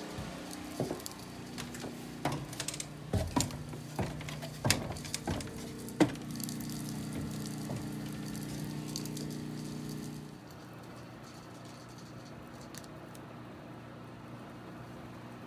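Loose-fill attic insulation blowing out of a wide flexible hose: a steady hum with a run of knocks and clatters in the first six seconds, then, after about ten seconds, the hum drops away and leaves a steady, even hiss of insulation rushing from the hose.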